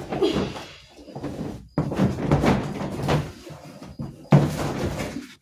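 Plastic lid and parts of a new single-tub washing machine being handled, opened and lifted. The knocks and scrapes come in three stretches, the sharpest starting about four seconds in.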